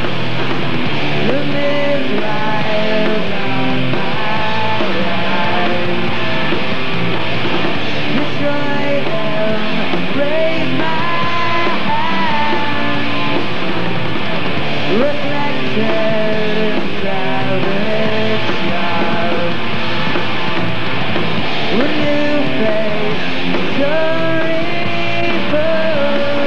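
Rock band playing live: two electric guitars, bass and drums, with guitar notes sliding in pitch now and then.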